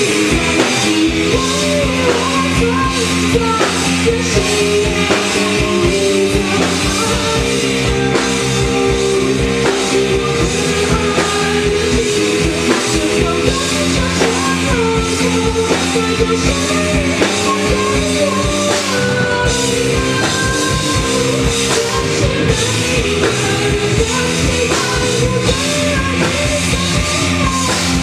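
Live rock band playing a loud, steady passage, with a drum kit under sustained keyboard and bass notes.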